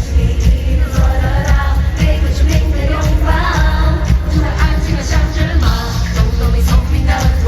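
Live pop concert music heard from the arena floor: a female lead vocal over a band with heavy bass and a steady drum beat, with the crowd singing along.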